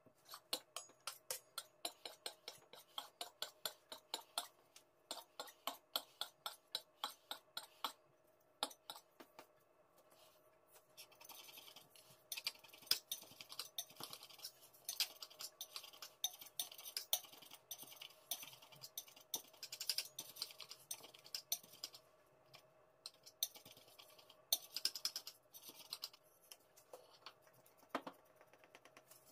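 A knife scratching as it saws through stacked layers of buttered yufka (phyllo) pastry in a metal baklava tray, the blade scraping along the tray. In the first several seconds there is instead an even run of sharp clicks, about three a second.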